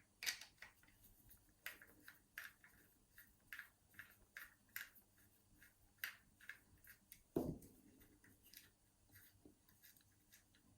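Faint small clicks and scrapes of a metal mortice lock and tools being handled, with one heavier knock about seven seconds in.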